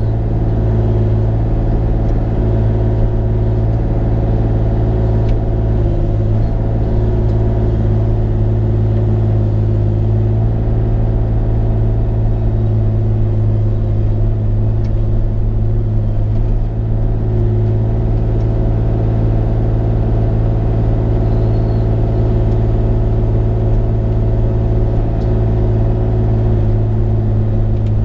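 Bobcat E35i mini excavator's diesel engine running steadily at a constant speed.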